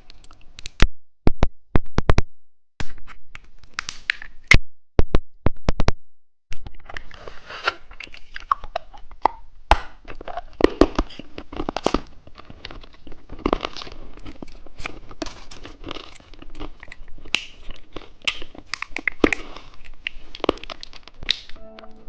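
Close-up sharp snaps and crinkles of a plastic candy wrapper being torn open, spaced with short pauses, then from about six seconds in a steady run of crunching and chewing on a hard lollipop.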